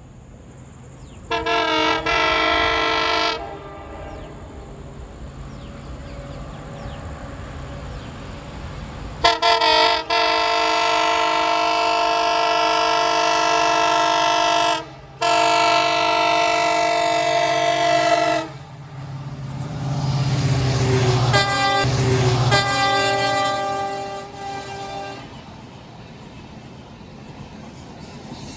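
WDP4B diesel locomotive's horn honking in repeated blasts: one of about two seconds, then a long blast of about five seconds, a brief break and another of about three seconds. After that the locomotive passes: its low rumble swells and fades, with a fainter horn over it.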